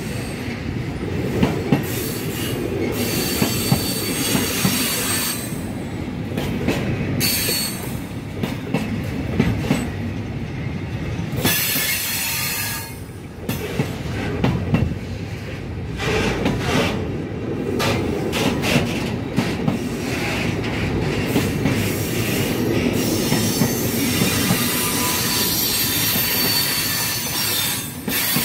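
Container flat wagons of a freight train rolling past at close range: a steady rumble of wheels on rail, with sharp clacks where the wheels strike the rail joints and, now and then, a high squeal from the wheels.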